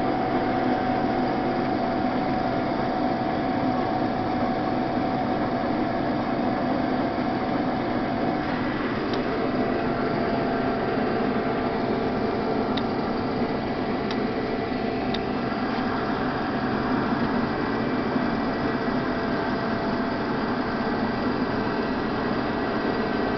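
Case IH 1680 Axial-Flow combine running steadily under load while harvesting wheat, its engine and threshing machinery making a constant drone, with a few faint ticks midway.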